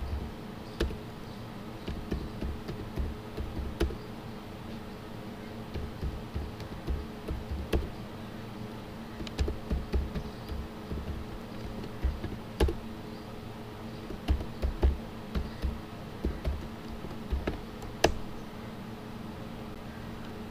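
Computer keyboard keys tapped in short, irregular runs of clicks, over a steady low hum.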